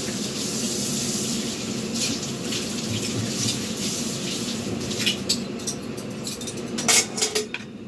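Steady hissing rush, like steam venting or water running, with a low hum beneath it. Near the end come a few sharp clicks and knocks.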